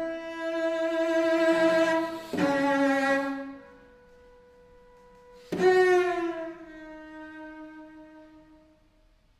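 Solo cello playing slow bowed notes: two long held notes, then a quiet stretch with only a thin high tone. About halfway through a sharply attacked note slides slightly down in pitch and fades away near the end.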